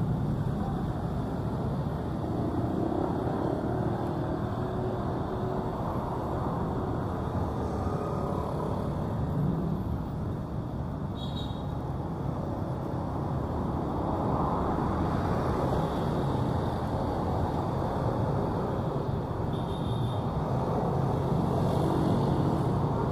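Steady city road traffic: cars and motorcycles driving past on the street alongside, the noise swelling now and then as vehicles pass close.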